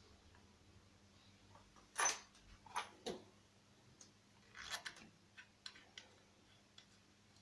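Scattered light clicks and knocks of hand tools and chainsaw engine parts being handled on a bench during crankcase disassembly. The loudest knock comes about two seconds in, and a small cluster of clicks comes near the middle.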